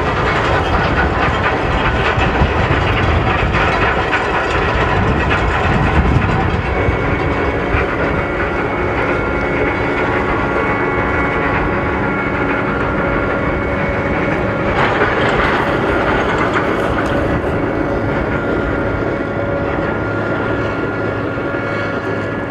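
Ro-ro ferry Porfyrousa passing close while arriving in port: a loud, steady rumble of its engines and of water churning along the hull. From about seven seconds in, a steady hum of several tones joins the rumble.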